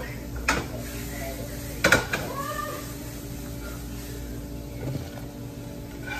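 Metal cookware clatter as a frying pan and utensils are handled: a knock about half a second in, then a louder metallic clank with a brief ring about two seconds in, over a steady low hum.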